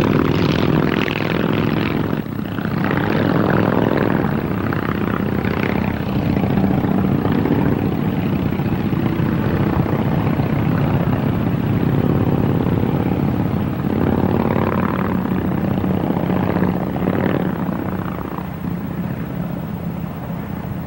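A group of Indian Chief motorcycles' flathead V-twin engines running at cruising speed on the open road. The steady drone swells and eases a few times as the bikes ride on.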